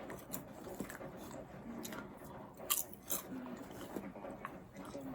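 A person chewing crunchy food close to the microphone, with irregular sharp crunches.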